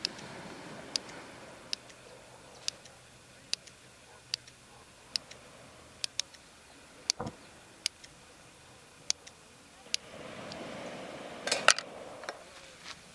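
Scissors snipping into raw bread-dough balls to score a cross on each, a crisp snip about once a second, about a dozen in all. Near the end there is some rustling handling and a louder sharp click.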